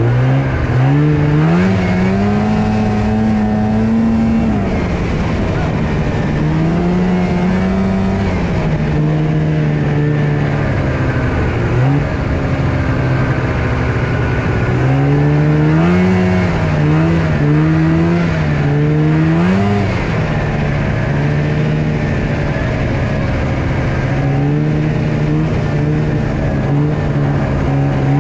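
Polaris RMK EVO youth snowmobile engine running under throttle, its revs rising and falling again and again as the rider accelerates and eases off, with several quick rev surges around the middle.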